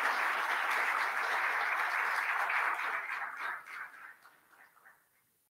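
Audience applauding, a dense steady clapping that fades away after about three seconds.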